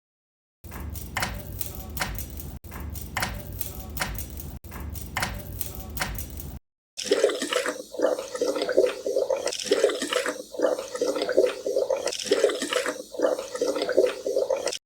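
Short edited takes of household noises: a low rumbling noise with regular sharp ticks, cut into three pieces, then after a brief gap a louder rushing, fluttering water sound like a toilet flushing.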